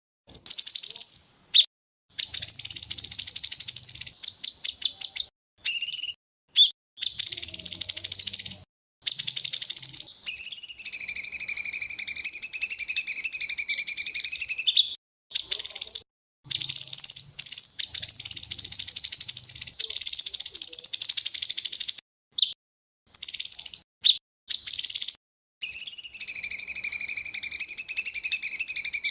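Songbird song in fast, high, rattling trills of rapid-fire 'tembakan' notes, twice giving way to a wavering whistled note held for a few seconds. The song is chopped into sections by abrupt full silences, as in an edited masteran tutoring track.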